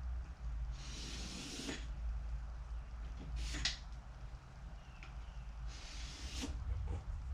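Three short scraping strokes, each under a second and a couple of seconds apart, over a steady low hum.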